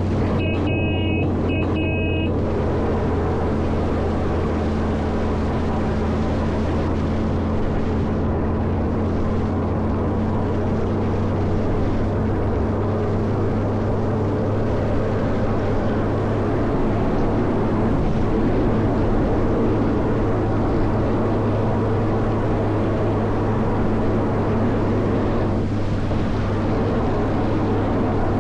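Caterpillar 140M motor grader's diesel engine running steadily with a deep hum, working while clearing snow. For the first two seconds a pitched, broken-up tone sounds over the engine.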